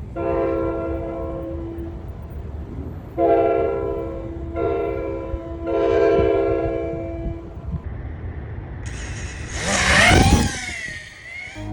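Train horn sounding four steady blasts, long, short, short, long. About nine seconds in, a loud rushing whoosh with whining tones that glide down rises and fades.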